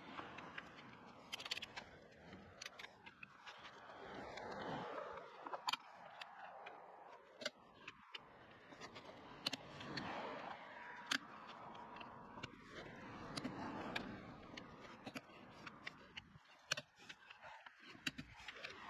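Click-type torque wrench tightening a car's wheel lug nuts to 140 Nm: short, sharp metallic clicks now and then as the wrench ratchets and releases at its set torque, over a faint background hiss that rises and falls.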